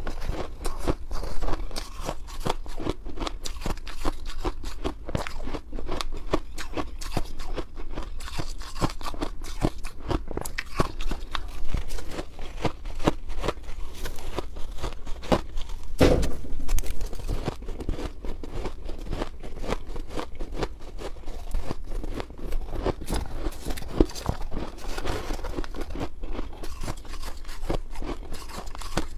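Shaved ice crunching as it is bitten and chewed, with a metal spoon digging into a bowl of shaved ice: dense, rapid crackling throughout, and one louder thump about sixteen seconds in.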